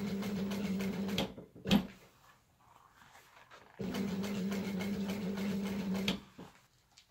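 Industrial sewing machine stitching a faux-leather seat cover in short runs: it runs for about a second, stops, and a sharp knock follows. After a pause of about two seconds it runs again for about two and a half seconds and stops.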